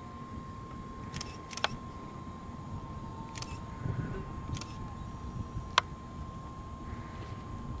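Several sharp camera shutter clicks, spread unevenly over a few seconds, the loudest near the end, over a steady faint high whine.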